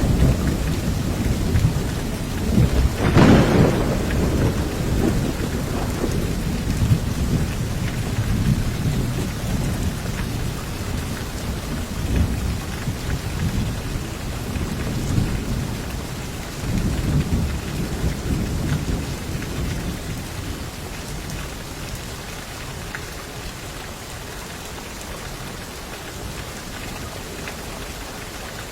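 Thunderstorm: steady rain with a sharp thunderclap about three seconds in, followed by low rolling rumbles that die away over the next fifteen seconds or so, leaving only the rain.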